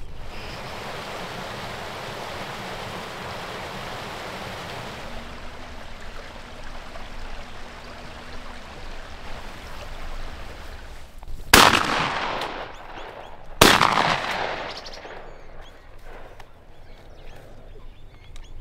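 Two shotgun shots about two seconds apart, each sudden and loud with a trailing echo, fired at a flushed pheasant.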